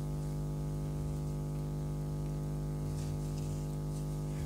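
Steady electrical hum with many overtones, unchanging throughout, with faint soft rustles about three seconds in.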